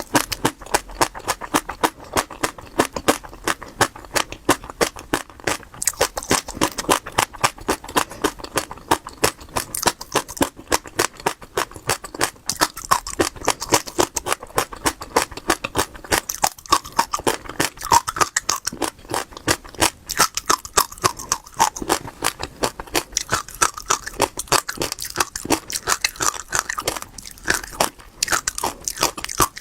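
Seeds being chewed close to the microphone: a continuous run of crisp crunches, several a second, as they are bitten and crushed between the teeth.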